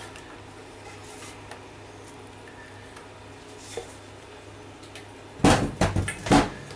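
Faint steady low hum, then a quick run of about five loud knocks and clatters over roughly a second, a little past five seconds in, as kitchen things are handled.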